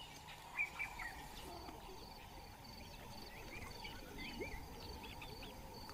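Faint wild outdoor ambience: scattered short, high chirping calls, a few at a time, over a quiet, evenly pulsed high trill.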